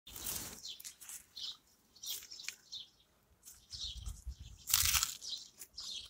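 Small garden birds chirping in short, repeated high calls, over bursts of rustling noise, the loudest about five seconds in.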